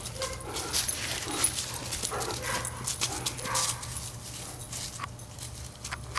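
Dogs at play: a few short, quiet vocal sounds from the dogs, among scattered clicks and rustles.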